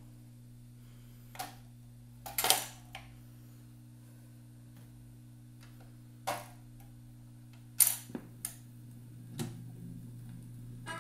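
Automatic record changer of a 1970s Taterka STP400 record player cycling. A sharp clunk comes as a record drops onto the platter, then a series of clicks and knocks as the mechanism swings the tonearm over and lowers it, all over a steady low hum. Near the end a soft hiss rises as the stylus settles into the groove.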